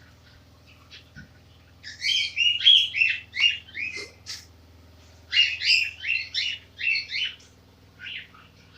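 Female cockatiel chirping: two quick runs of short, falling chirps, one about two seconds in and another about five seconds in, with a single chirp near the end.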